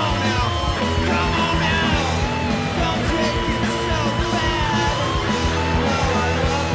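Studio recording of a rock band playing, with electric guitars, bass and drums. Steady and continuous, with bending guitar lines over a regular drum beat.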